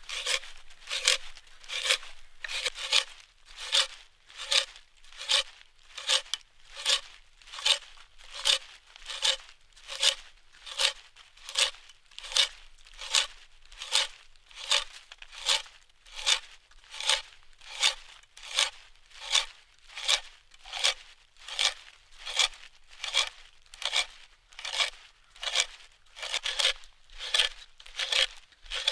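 T-handled hand auger boring into a log, the screw bit crunching and tearing out shavings in an even rhythm of about four cuts every three seconds as the handle is turned.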